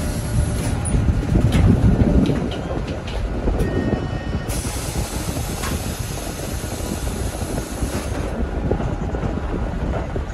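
Interior of a 2014 Hyundai New Super Aerocity city bus under way: the engine runs with a Euro 5-type engine note, louder for the first two seconds or so and then steady, with small rattles and road noise from the cabin.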